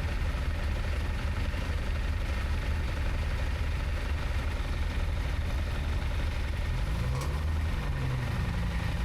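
Vehicle engines idling with a steady low rumble. Near the end, another engine's pitch briefly rises and falls.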